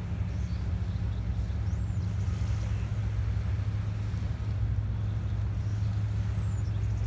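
Steady low drone of a distant tugboat's diesel engine moving a barge across the bay, carried over open water. Two faint high chirps come over it, about two seconds in and near the end.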